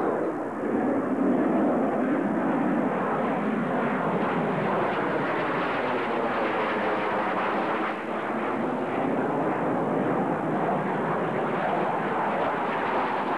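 An F-111E jet with its twin TF30 turbofans flying over on its departure from the runway: a loud, steady jet noise whose tone sweeps slowly as the aircraft passes.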